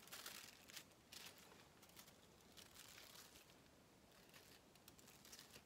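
Faint crinkling and light rustles of aluminium highlighting foil being folded and pressed over a section of hair.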